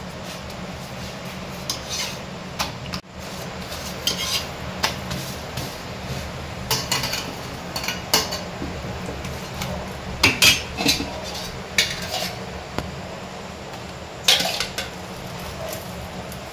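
Metal utensils clinking and tapping against dishes and pans, in irregular clusters, over a steady low hum.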